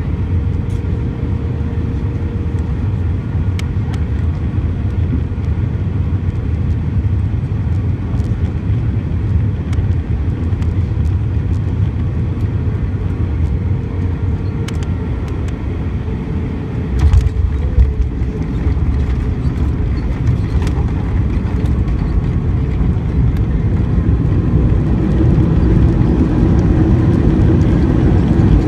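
Cabin noise inside an Airbus A320-232 with IAE V2500 engines: a steady rumble of engines and airflow on final approach. About halfway through come a couple of heavy thumps as the wheels touch down, and the low rumble gets heavier. Near the end the noise builds louder, as the engines spool up for reverse thrust on the landing rollout.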